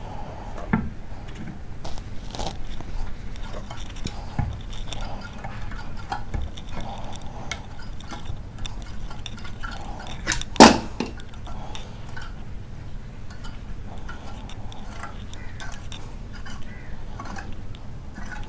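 Small metallic clicks and handling noises from hand work on a jammed, rust-seized water pressure pump motor, with one sharp, loud knock about ten and a half seconds in.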